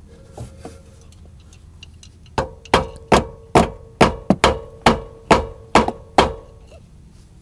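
Hammer blows on metal, about ten sharp strikes in quick succession starting about two seconds in, each with a short metallic ring, as a tight rear camber arm on a BMW F80 M3 is worked free.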